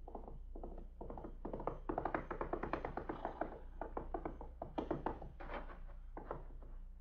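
Radio-drama sound effects: a quick run of taps that swells about two seconds in and dies away, then a few separate louder knocks, over the steady low hum of an old recording.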